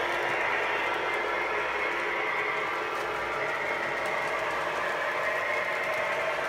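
Electric model trains running on the layout: a steady whir of small motors and gears with wheels rolling on the track.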